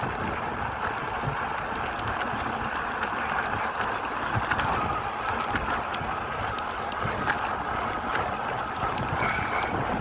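Steady rush of wind buffeting the microphone, mixed with e-bike tyres running over a wet, icy trail in the rain. Scattered light clicks and rattles are heard throughout.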